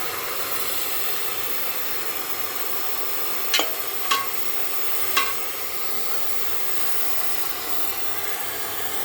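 Oxy-acetylene welding torch flame hissing steadily, with three sharp taps about three and a half, four and five seconds in, each leaving a brief ring.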